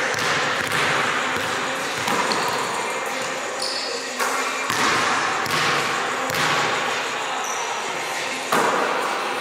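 Basketball bouncing on a hardwood gym floor during shooting practice: several separate thuds, unevenly spaced a second or two apart, echoing in a large hall, with a couple of brief high squeaks.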